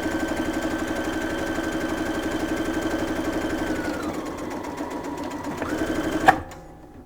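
Brother LB5000S computerized sewing machine stitching through four layers of fabric at medium speed, a rapid even run of needle strokes over its motor whine. The whine dips in pitch around four seconds in and rises again, then the stitching stops with a click a little after six seconds.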